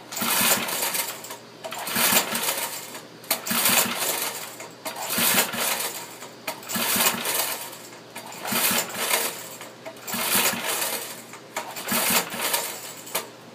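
Recoil starter rope of a pre-1981 5 hp Briggs & Stratton horizontal-shaft engine pulled about eight times in a row, roughly every second and a half, each pull whirring the engine over without it firing. The spark plug is out and a compression gauge sits in its hole, so each pull builds compression on the gauge for a dry compression test.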